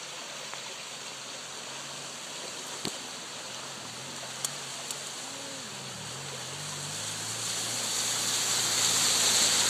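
Steady rush of flash-flood water running across a road. About halfway through, a low vehicle engine comes in, and near the end the splashing noise swells as the vehicle drives through the floodwater.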